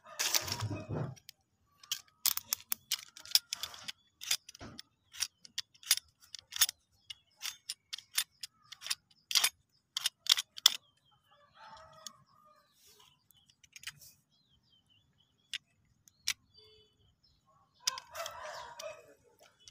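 A snap-off utility knife cutting and shaving a green mango stem: a run of short, sharp clicks and snicks, thick for the first half and sparser later.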